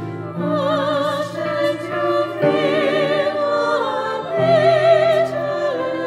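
Women's choir singing held notes with vibrato over low sustained notes, the chord changing about every two seconds.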